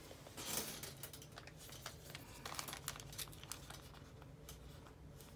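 Clear plastic sticker packet crinkling as it is handled: a run of small, faint crackles with a short louder rustle about half a second in.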